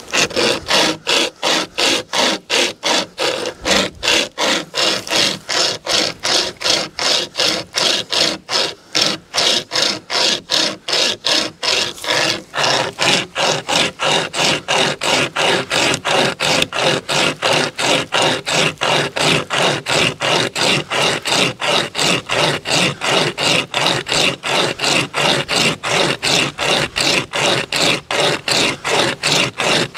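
Drifta Stockton pocket chainsaw, a hand-pulled length of chainsaw chain, rasping back and forth through a tree branch in quick, even strokes, about three a second.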